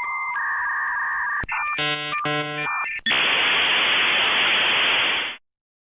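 Dial-up modem connecting: steady answer and handshake tones, a brief burst of chirping tones about a second and a half in, then a loud rushing hiss that cuts off suddenly near the end.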